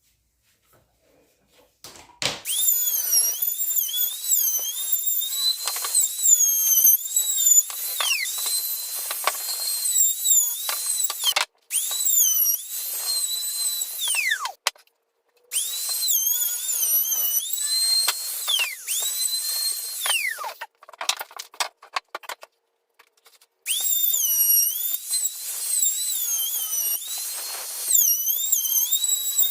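A small high-speed power tool whining in several long runs with short pauses between them. Its pitch dips and wavers as it works and slides down a few times as it winds down.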